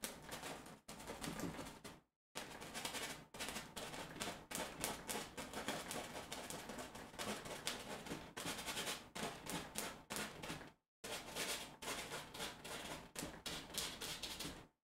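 Paintbrush bristles scrubbing and tapping on stretched canvas in quick, irregular strokes, stopping briefly twice.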